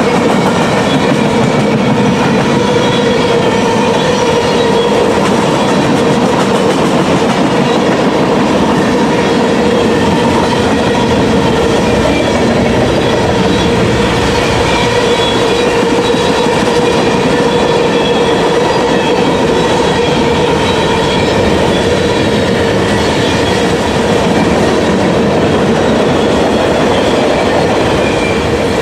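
CSX manifest freight train rolling past at speed, its cars' steel wheels clattering steadily over the rail joints, with a steady ringing tone over the rolling noise.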